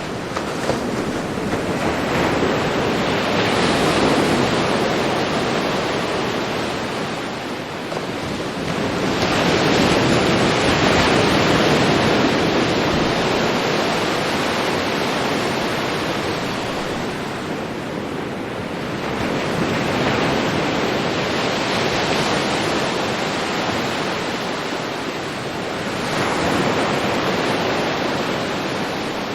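Ocean waves breaking on a beach: a continuous wash of surf that swells and falls back roughly every seven to ten seconds.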